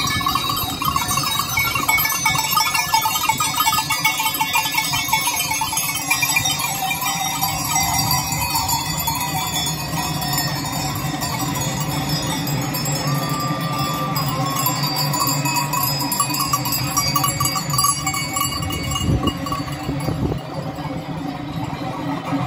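Bells on a herd of goats clanging and jingling continuously as the animals walk by, many bells ringing at once; the ringing thins out near the end as the herd moves past.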